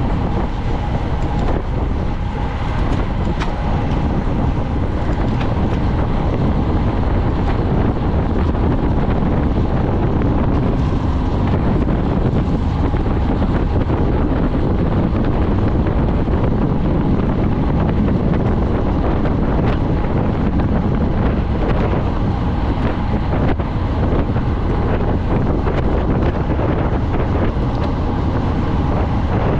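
Steady, loud wind noise on the microphone of a bicycle moving at race speed, with a few faint clicks.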